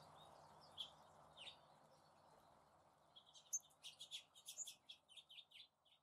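Small songbirds chirping: a few short, high chirps in the first half, then a quick string of chirps over the last three seconds, above a faint hiss that fades away near the end.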